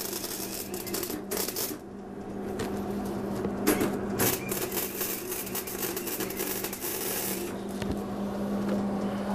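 Hobart wire-feed (MIG) welder arc crackling and sizzling in bursts as steel scrap is welded solid, with a low steady hum underneath. The arc stops briefly about two seconds in, runs again, and eases off near the end.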